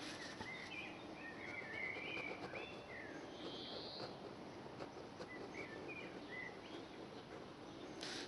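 Small birds chirping in short twittering runs, once in the first three seconds and again about five to six seconds in, over steady background noise.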